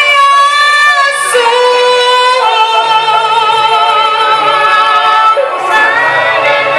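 A woman singing a worship song in long held notes with vibrato, over a steady low accompaniment.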